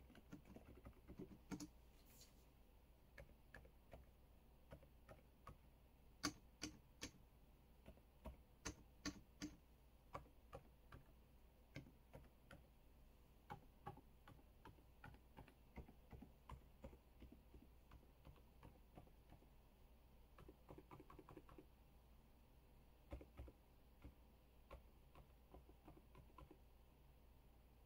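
Typing on an EPOMAKER DynaTab 75x mechanical keyboard: irregular key clicks, some in quick runs, with short pauses between them.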